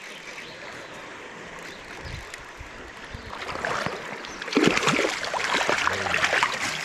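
Shallow spring creek rushing steadily, then from about halfway through, loud irregular splashing at the surface as a hooked trout thrashes while it is brought to the landing net.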